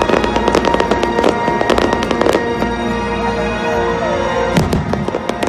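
Aerial fireworks going off, a rapid run of crackling bursts for the first two seconds or so that then thins out, with a few more sharp bangs near the end. Steady music plays underneath.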